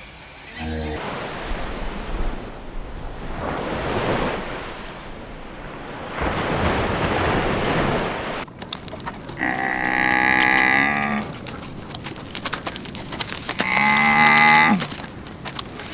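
Cattle mooing: two long calls, one about two-thirds of the way in and a second near the end. Before them, a steady rushing noise like wind.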